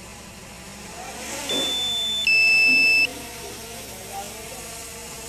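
Electronic alarm beeping: a steady high beep about a second and a half in, followed at once by a louder two-tone beep lasting under a second. The pair repeats every few seconds.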